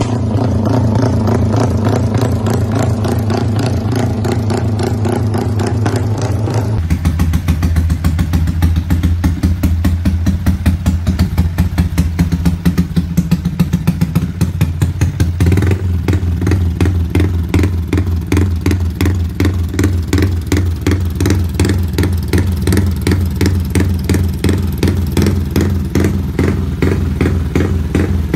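An engine running at a steady idle with a rapid, even beat; the sound changes abruptly about seven seconds in and again about halfway through.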